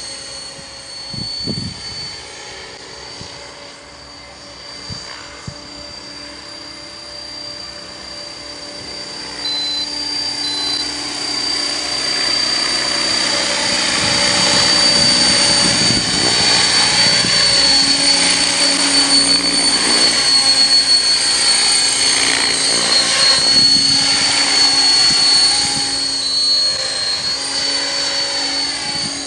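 Electric RC helicopter (KDS Innova 550 fitted with KBDD rotor blades) in flight. A steady high motor whine runs over the rotor noise, growing louder as it comes close in the middle and easing off near the end.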